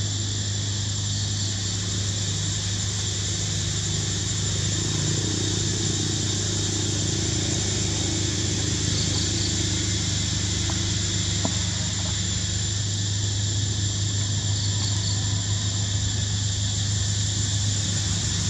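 A steady low hum like an engine idling, unchanging throughout, with a thin steady high whine above it. Faint short chirps come three times.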